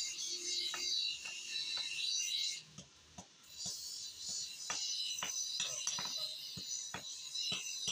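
Hand hammer striking an iron spade head on an anvil in quick, uneven blows, about two a second, over background music.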